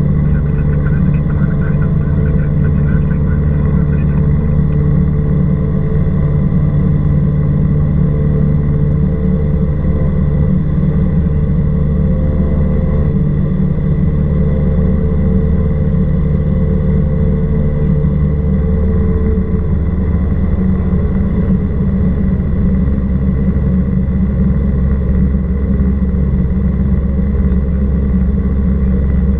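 Cessna 172R Skyhawk II's four-cylinder Lycoming engine and propeller droning steadily in cruise flight, with a slight shift in tone about two-thirds of the way through.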